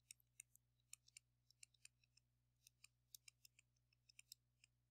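Very faint, irregular ticks and taps of a stylus on a tablet as a word is handwritten, over a faint steady low hum.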